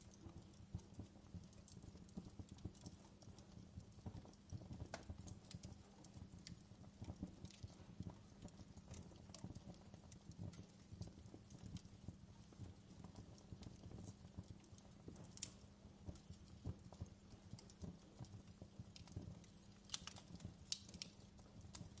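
Wood fire crackling quietly, with irregular small snaps and a few sharper pops, the loudest cluster of pops near the end, over a low steady rumble of the burning.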